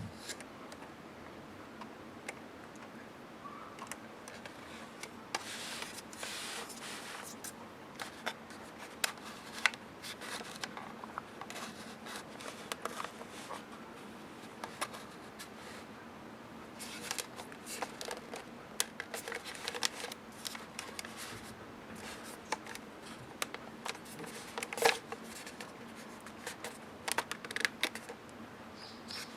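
Hands handling a small plastic alarm clock: scattered light clicks, taps and brief rustles at an uneven pace, with one sharper click a few seconds before the end.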